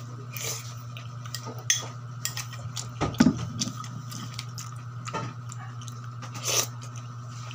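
A person eating: a spoon clicking and scraping on a plate with soft chewing sounds in between, a few louder knocks scattered through. A steady low hum runs underneath.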